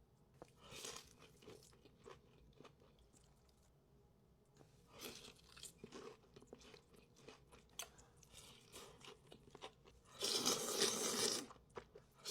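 Close-miked mukbang eating: chewing and crunching of food in scattered bursts, with a louder, denser stretch of crunching near the end.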